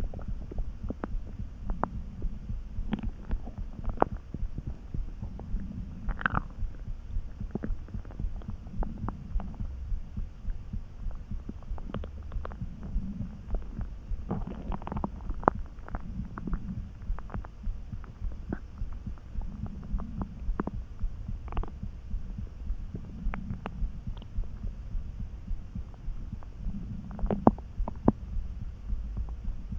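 Hungry stomach calmly churning: a steady low rumble with a soft, regular throb under it, broken all through by short gurgles and squeaks, a few of them sharper and higher.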